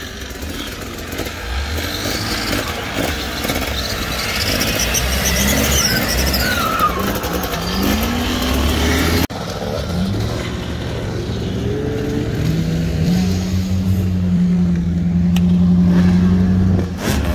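Off-road 4x4 engines revving, their pitch rising and falling, with a cut about nine seconds in. After the cut one engine climbs to a high rev, holds it steady for several seconds, then drops off near the end.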